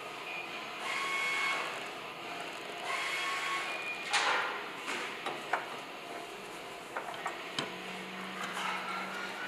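A new spin-on oil filter being handled and screwed onto its mount by hand: scuffing and scraping twice, then several small clicks and knocks.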